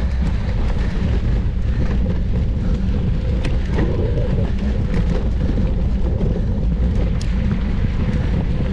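Wind buffeting the camera microphone of a mountain bike ridden at race speed: a steady, loud, low rumble, with a few sharp clicks and rattles from the bike.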